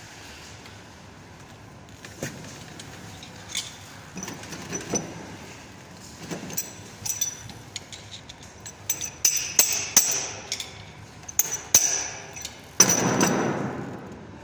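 Metal clinks and taps, tools and fittings knocking on steel pipework. Some ring with a high tone, and they come thicker toward the end, followed by a harsh noise lasting about a second near the end.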